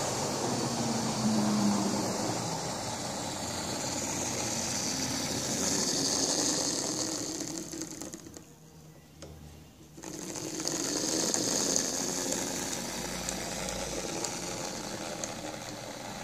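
Lima OO-gauge Class 31 model diesel locomotive running along the track, its small electric motor whirring and its wheels rolling over the rails. It swells twice as the train passes close and drops almost to silence for about two seconds in the middle.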